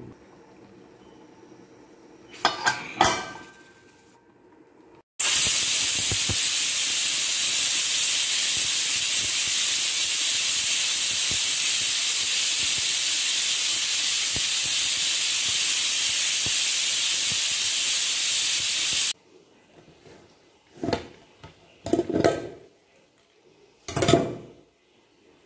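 Stainless steel pressure cooker releasing steam through its weighted whistle valve: a loud, steady hiss starts suddenly about five seconds in, runs for about fourteen seconds and cuts off sharply. A few short metal clatters come before it and near the end.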